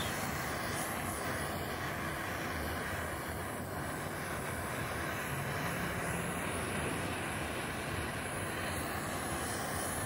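Small handheld gas torch burning with a steady hiss as its flame heats heat-shrink tubing over a wire splice.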